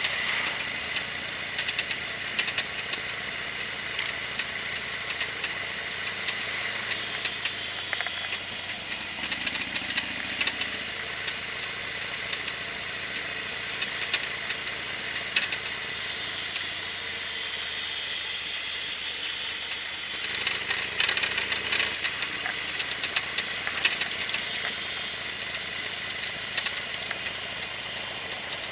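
Harley-Davidson Sportster XL1200R's air-cooled V-twin running, with mechanical rattling and clicking over it: the noise the owner is hunting, which a spacer fitted between the caliper support bolt and the rear shock spring did not cure.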